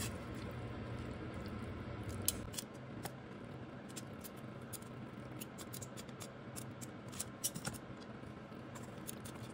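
Metal kitchen tongs clicking and scraping against a stainless steel bowl as cooked beef is pulled off the bone: many light, irregular clicks. A low hum in the background stops about two and a half seconds in.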